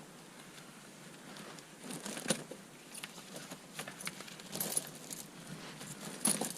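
Tire chain and its steel inner cable clinking and rattling in irregular light metallic clicks as the cable's hook is fastened behind the tire. The clicks pick up about two seconds in.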